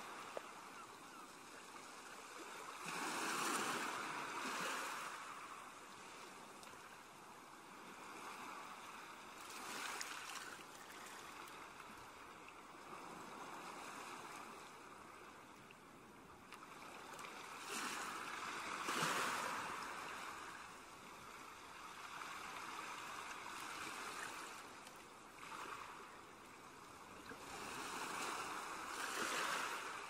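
Ocean waves washing in gently, a wash of water noise that swells and fades about four times, several seconds apart.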